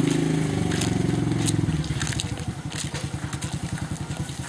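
A small engine running at low speed with a rapid, even beat, easing off a little about two seconds in, with scattered clicks over it.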